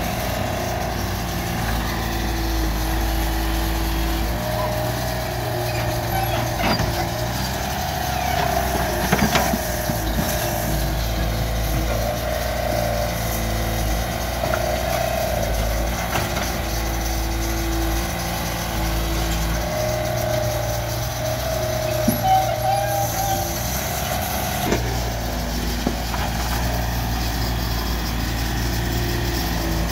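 Mini excavator's diesel engine running steadily, its note swelling and easing several times as the arm and bucket work, with a few sharp knocks of bucket and falling dirt and rock.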